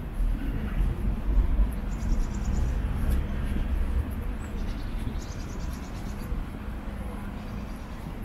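Town street ambience: a low, uneven rumble, heaviest in the first four seconds, with short high bird trills about two seconds and about five seconds in.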